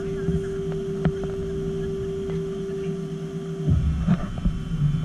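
A steady machine hum with a constant tone, which cuts off abruptly about three and a half seconds in. A few low knocks and handling noises follow.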